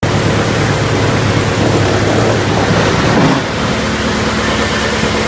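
Drum wood chipper running: a loud, steady machine noise with a low hum underneath. About three and a half seconds in, the level dips slightly and a steadier hum tone comes in.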